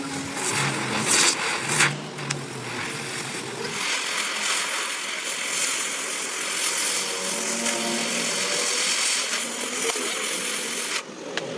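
A machine running steadily, with several knocks and clanks in the first couple of seconds; the steady noise drops away sharply near the end.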